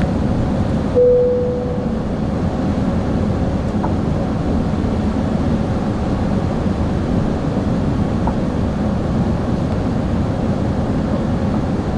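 Steady rumble and airflow hiss inside an Airbus A380 passenger cabin in flight. About a second in, a single cabin chime sounds and fades away over about a second.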